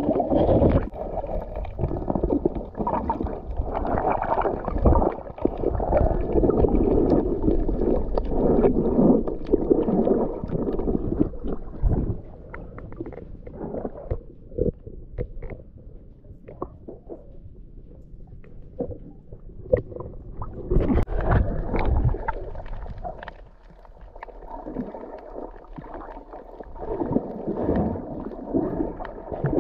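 Muffled sloshing and gurgling of water picked up by a camera held underwater while snorkelling, with many scattered small clicks and knocks. It goes quieter for several seconds in the middle, then swells again.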